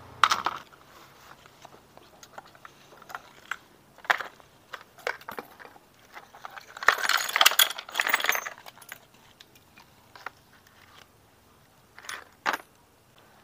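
Small loose metal motorcycle engine parts (gears, bolts, bearings) clinking and clattering as they are picked up and sorted by hand. There are scattered single clinks, with a busier burst of rattling about seven seconds in.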